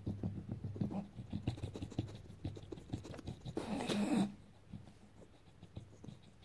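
English bulldog snuffling and rooting its face into a plush fleece dog bed, with rapid scratchy rustling of the fabric, and a loud breathy huff about three and a half seconds in.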